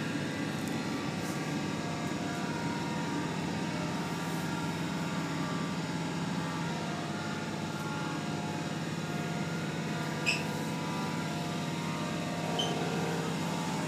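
Steady running noise of a passenger train heard from inside the carriage, with a constant low hum. A few brief high squeaks come near the end.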